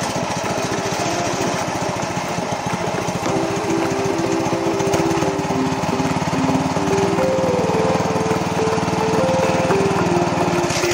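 Small air-cooled petrol engine driving a sugarcane leaf-stripping machine, running steadily at a fast even beat and getting louder from about four seconds in.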